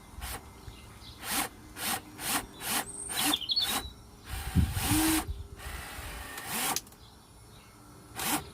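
A hand tool rasping on wood: five short strokes about twice a second, then two longer strokes, and two more short ones near the end.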